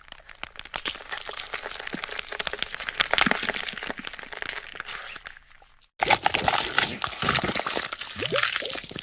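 Dense crackling made of many sharp clicks and crunches. It fades almost away about six seconds in, then cuts back in suddenly louder, with a few short gliding tones near the end.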